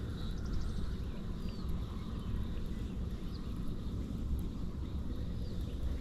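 Outdoor background: a steady low rumble with a few faint, brief bird chirps scattered through it.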